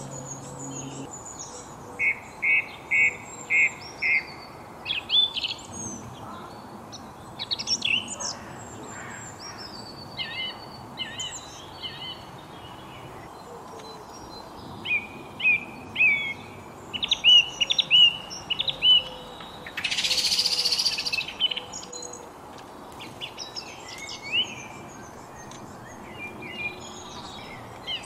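Several songbirds singing and calling: quick repeated chirps, short trills and whistled notes overlapping one another. About two-thirds of the way through there is a short burst of rushing noise.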